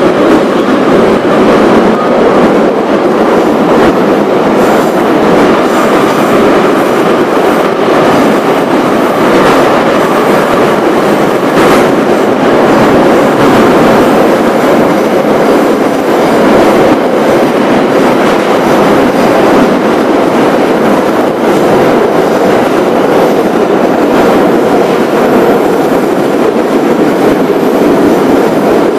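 Moscow Metro 81-717/714 subway train running through a tunnel, heard from inside the carriage: a loud, steady rumble of wheels on rails, with a single sharp knock about twelve seconds in.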